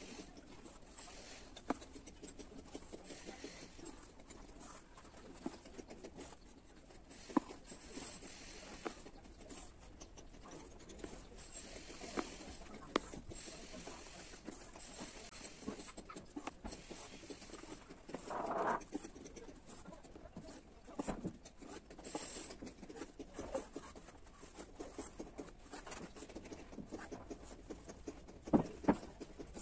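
Soft scratching and small ticks of an embroidery needle and thread being pulled through cloth held in a plastic hoop, with a brief louder sound about two-thirds of the way through and a few sharp clicks near the end.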